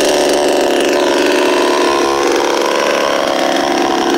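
52cc Chinese Stihl-clone two-stroke chainsaw running steadily at an even pitch, not revved up.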